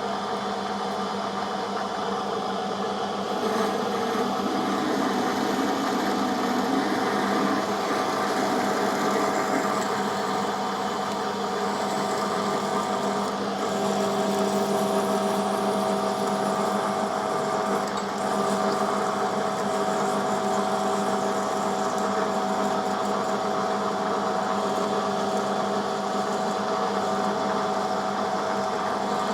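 Metal lathe running steadily with an even hum while a half-inch drill in the tailstock bores into the end of a 4140 steel shaft. The drill is a little blunt.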